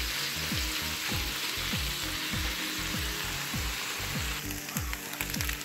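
Chicken breast pieces sizzling steadily as they fry in a frying pan with oil and soy sauce.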